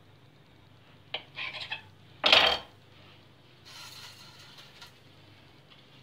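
Kitchen knife cutting through a round of fresh white cheese and knocking against a granite countertop: a sharp click about a second in, a few light knocks, then a louder metallic clack just past two seconds, followed by a soft scraping.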